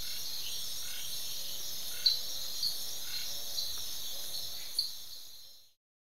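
Tropical night insect chorus: a steady high-pitched drone with short sharp chirping calls standing out every second or so. It fades out about five and a half seconds in.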